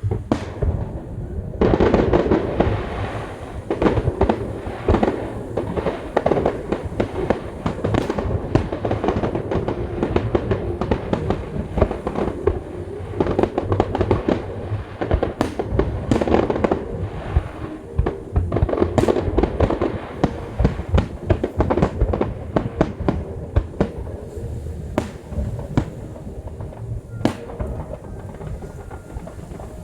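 A dense barrage of fireworks: booms and crackles come many times a second without a break, then thin out somewhat near the end.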